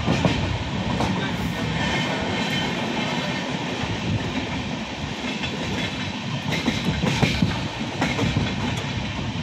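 Passenger train running along the rails, heard from inside the carriage through an open window: a steady rumble and rattle, with a few sharper clacks of the wheels over rail joints in the second half.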